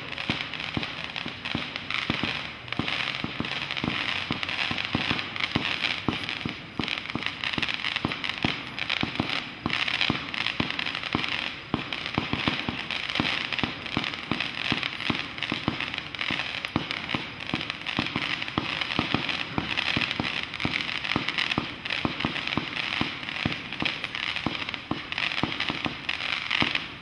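Brothers 'Ninjas of the Night' 100-shot, 500 g fireworks cake firing. Shots and their breaks come in a rapid, near-continuous string of pops with no pauses.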